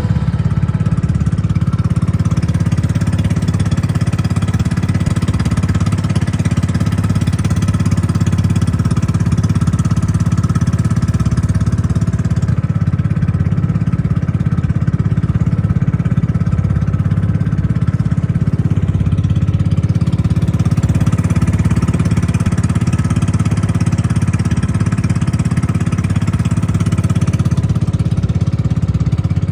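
A small engine running steadily at constant speed for the whole stretch, with a deep, even drone and no change in pace.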